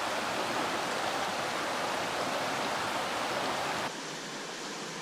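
Steady rush of a small, rocky stream's water flowing, a little quieter from about four seconds in.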